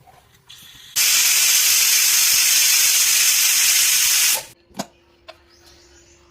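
Loud steady hiss of steam in a kitchen during cooking. It starts abruptly about a second in and cuts off sharply about three and a half seconds later, followed by a short knock.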